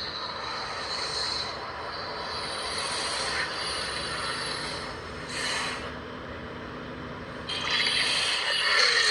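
Monster roar sound effect: a long, harsh, screeching rasp, swelling louder about five and a half seconds in and again from about seven and a half seconds to the end.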